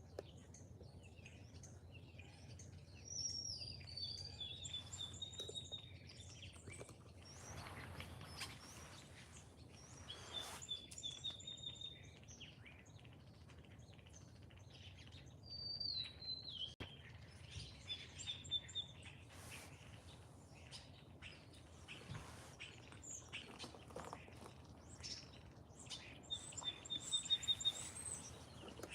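Wild songbirds calling and singing: short chirps, several quick runs of evenly spaced high notes, and a few falling whistles, over a faint steady background hiss.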